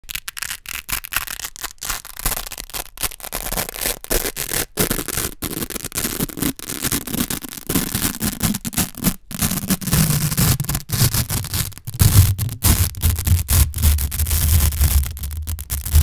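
Strips of Velcro hook-and-loop tape worked by hand close to the microphone: a dense crackling rip, broken by many short gaps, with a low rumble underneath from about ten seconds in.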